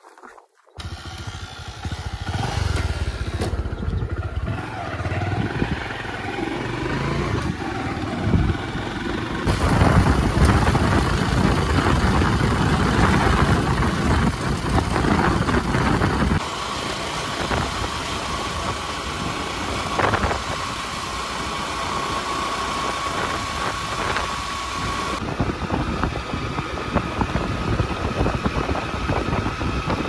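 Engine sound across several edited cuts; from about halfway, a motorcycle runs steadily while it is ridden along a road, with road and wind noise and a steady whine.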